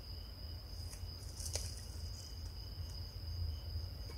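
Crickets trilling steadily in one high, unbroken note, over a low rumble, with a single sharp click about a second and a half in.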